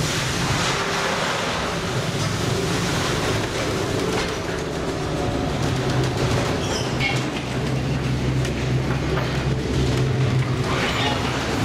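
Ship's engine and machinery giving a steady low hum inside the wheelhouse, under a rushing wash of storm wind and heavy sea against the hull and windows.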